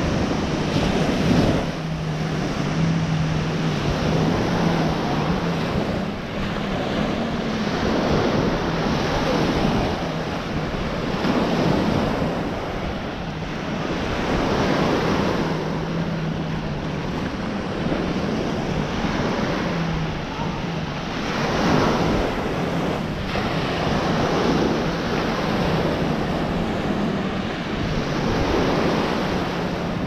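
Small waves breaking and washing up a sandy shore, with wind buffeting the microphone. The surf swells and fades every few seconds, and a low steady hum comes in now and then.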